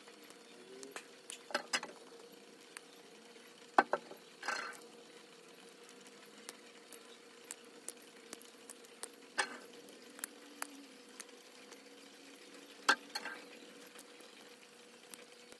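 Scattered sharp clicks and clinks of small hard objects being handled, the loudest about four seconds in and others near two, nine and thirteen seconds, over a faint steady hum.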